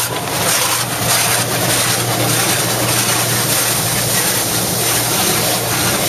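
Automatic car wash working on the car, heard from inside the cabin: a steady, loud rush of water spray and washing equipment over the body, with a constant low machine hum underneath.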